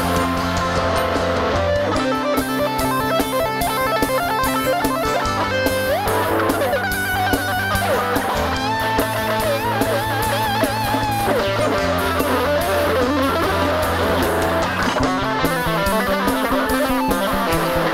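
Worship band playing an instrumental passage: a Stratocaster-style electric guitar plays a lead line with bent, wavering notes over electric bass, keyboards and drums.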